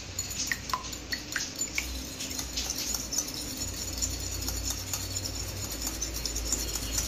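Metal fork whisking two raw eggs in a porcelain bowl: quick, steady clicking and tapping of the fork against the bowl. There are a few short ringing clinks in the first two seconds.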